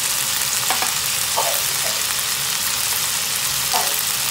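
Chicken pieces with ginger and lemongrass frying in a pan, a steady sizzling hiss.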